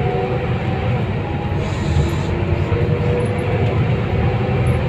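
Interior of a Scania K320UB city bus under way: steady engine and road noise with a faint whine riding over it.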